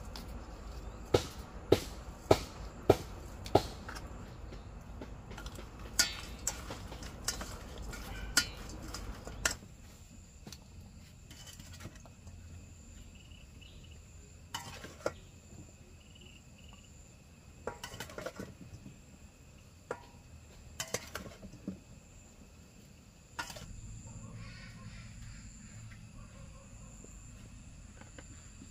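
Sharp knocks and clinks of kitchen utensils and dishes. A quick run comes about every half second at first, then they turn scattered, over a low steady noise that stops about ten seconds in. Insects chirp faintly behind.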